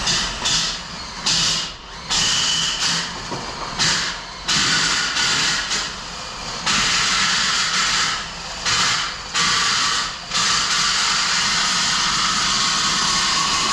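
Drain auger cable with a chain on its end, spun by a drill inside a steel Jeep frame rail, rattling and scraping against the rusty walls to knock loose scale and crud. It runs in short bursts at first, then almost without a break from about halfway through.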